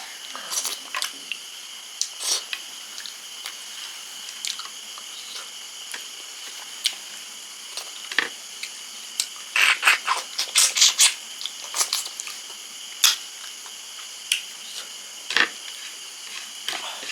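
Close-miked mukbang eating sounds: a person chewing fish curry, with wet mouth smacks and clicks scattered through and a quick run of them about ten seconds in, over a faint steady high-pitched hum.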